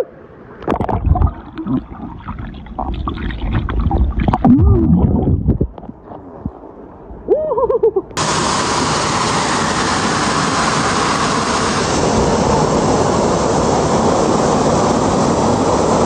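Muffled gurgling and splashing of pool water, heard with the phone's microphone dipping underwater. About 8 s in it switches abruptly to a steady rushing of a small waterfall pouring into the pool.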